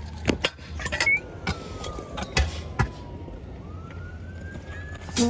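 A faint emergency-vehicle siren wailing, its pitch sliding slowly down and then back up, under sharp clacks and knocks of stunt-scooter wheels and deck on skatepark concrete.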